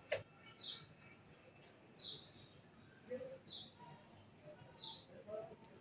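Short high bird chirps repeating about every second and a half, with a single sharp click just after the start.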